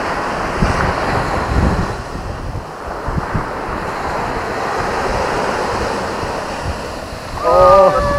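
Surf breaking and washing up a sandy beach, with wind buffeting the microphone in gusts. Near the end a person's voice calls out briefly.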